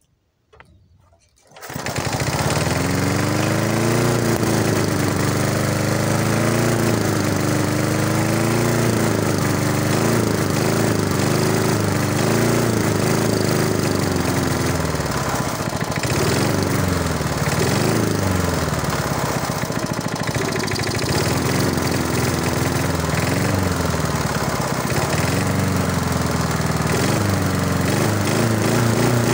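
Rotary lawn mower's small engine running, coming in suddenly about one and a half seconds in, its speed rising and falling unevenly while the carburetor is worked with a screwdriver. The owner blames the carburetor's diaphragm, cleaned but not replaced, for the engine's failing to rev out.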